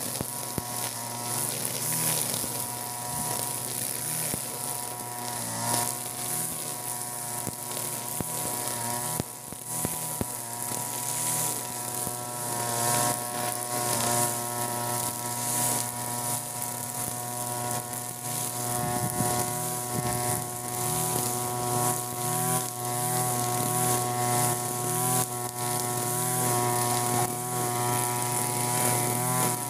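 EUROPA HILT EH4300 (TB43) two-stroke brush cutter running at high revs, its nylon trimmer line whipping through overgrown grass: a steady buzz over a hiss, with small changes in engine speed now and then.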